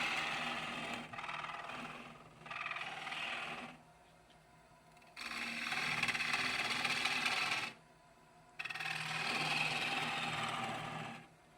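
Wood lathe spinning a bowl blank while a turning tool cuts it in about four passes of one to two and a half seconds each, a rough scraping of tool on wood. Between the passes only the lathe's steady motor hum carries on.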